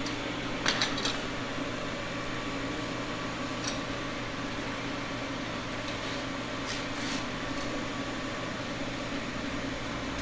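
Steady fan hum with a few light clicks about a second in.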